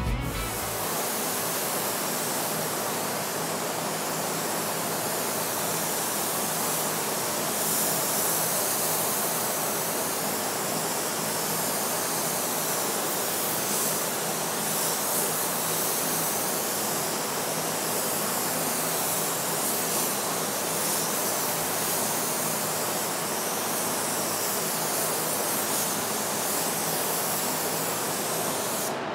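Compressed-air gravity-feed spray gun hissing steadily while spraying primer.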